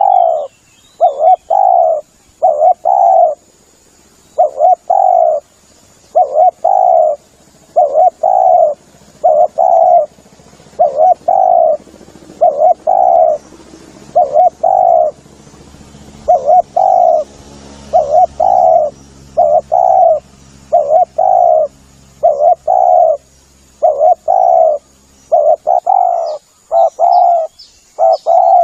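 Spotted dove (tekukur) cooing over and over, loud, in short repeated phrases of two or three coos about every one to two seconds: the call used as a lure for trapping the bird.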